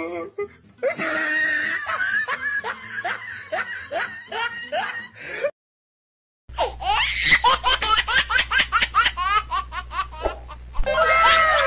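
Laughter in rapid, repeated bursts of ha-ha pulses, broken by about a second of silence near the middle. A few falling tones come in near the end.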